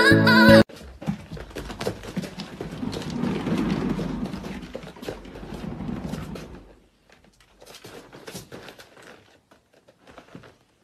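A cat's paws pattering and scrabbling on a hard surface: a rumbling run of quick steps for about six seconds, then a few scattered taps.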